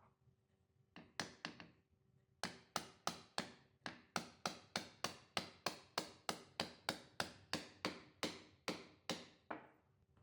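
Hammer tapping: three quick taps about a second in, then a steady run of sharp taps at about three a second, each with a short ring, stopping just before the end.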